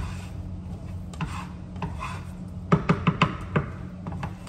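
A utensil knocking and scraping against a frying pan as eggs are stirred and scrambled, with a quick run of about six sharp knocks around three seconds in, over a steady low hum.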